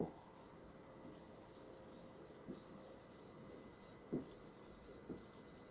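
Faint sound of a marker writing on a whiteboard, its strokes scratching lightly, with a few soft taps about two and a half, four and five seconds in.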